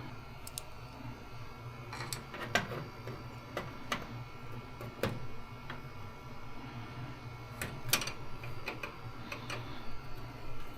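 Irregular sharp clicks and light metallic knocks of hand tools and clamps being worked on aluminium aircraft wing parts, about a dozen in all, over a steady low hum.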